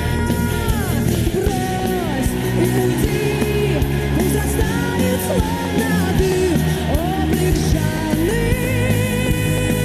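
Music: a song with a sung vocal line, held notes sliding between pitches, over a steady instrumental backing.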